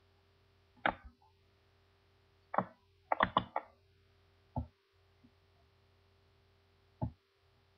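Computer mouse clicking: scattered single clicks and a quick run of about four near the middle, over a faint steady hum.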